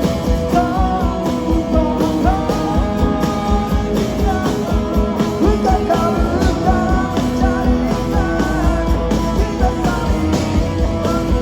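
Live band music: an instrumental passage of a pop-rock song, a guitar melody over bass and drums, with some singing.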